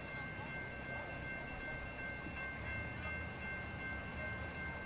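Railroad crossing warning bell ringing steadily as a high ringing tone over a low, even outdoor rumble.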